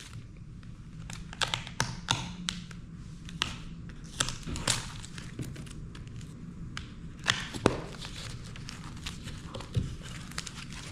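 Scattered light taps and clicks of small objects being handled and set down, with a sharper knock about seven and a half seconds in, over a steady low hum.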